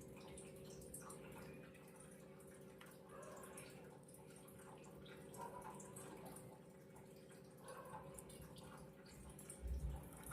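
Very faint steady hum with a few soft, short clicks and a low thump near the end.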